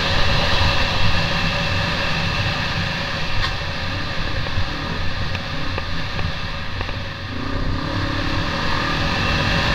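Off-road motorcycle engine running under steady throttle while riding a dirt trail. It eases off briefly about seven seconds in, then picks up again.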